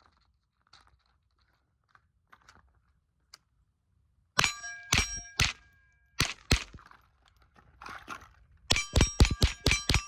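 Suppressed Mauser M-15 .22 LR semi-automatic rifle firing from a drum magazine. A few faint clicks come first, then three shots about half a second apart and two more. From about nine seconds in it fires rapidly at about four shots a second, with a metallic ringing after the shots.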